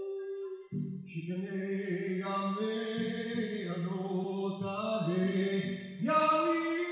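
Slow, chant-like song with long held notes over a sustained low accompaniment; the sound thins briefly just under a second in, then fuller notes come back.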